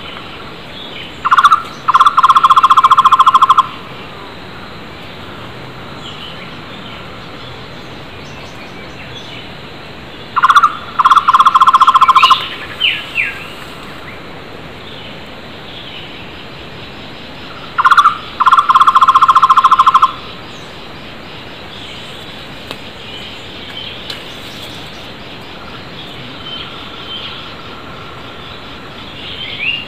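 Flame-fronted barbet (takur tohtor) calling three times: each call a short note followed by a rapid, even trill of about two seconds, repeated roughly every eight seconds. Other small birds chirp faintly between the calls, with a few quick down-slurred notes just after the second call.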